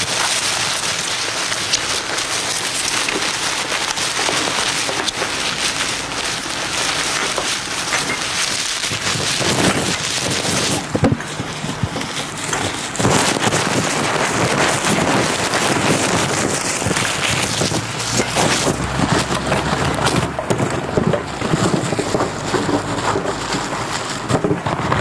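Dense, continuous crackling and rustling of recyclable packaging and paper being crumpled and worked by hand, growing busier and louder at times.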